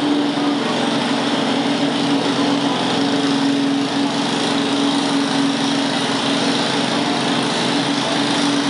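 Craftsman riding lawn tractor's engine running steadily under load, pulling a weighted sled.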